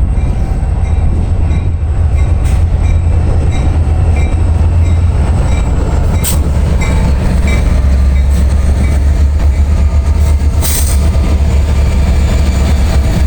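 Freight train rolling past with a continuous rumble and rattle of wheels and cars. Heavy wind buffets the microphone as a steady deep rumble underneath. There are two sharp knocks, about six and eleven seconds in.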